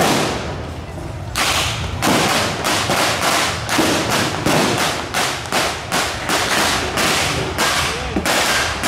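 Blank gunfire in a staged street battle: an irregular series of sharp shots, about two a second, each followed by a short echo.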